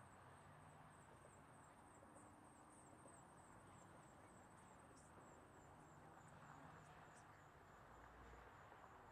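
Near silence with a faint, steady, high-pitched trilling of insects over a low background hiss.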